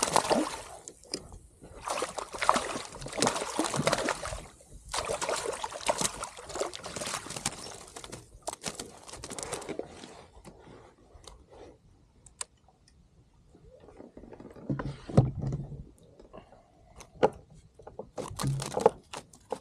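Water sloshing and splashing around a kayak, in loud surges through the first half, then quieter with scattered knocks and clicks near the end.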